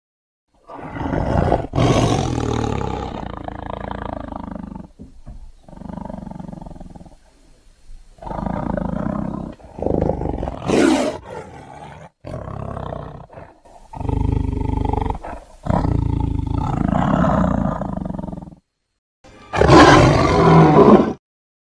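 A string of creature roars and growls, sound effects for a monster called the Primitive Zhen: about nine separate calls, each a second or a few long, with short silent gaps between them, the loudest near the end.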